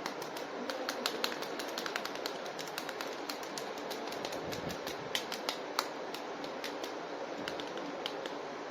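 Irregular small clicks and taps of hard plastic being handled as a toy action figure is unboxed, over a steady background hiss.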